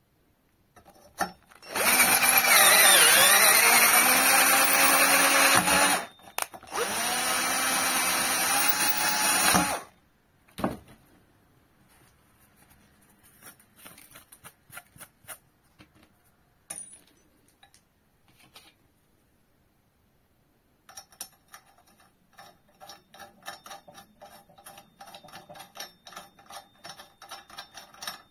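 Red cordless drill driving a hex-shank tap bit through a hole in steel flat bar, in two runs of a few seconds each; the motor's pitch dips at the start of the first run and then holds. Afterwards come quieter scattered handling sounds and, near the end, quick light metal clicks.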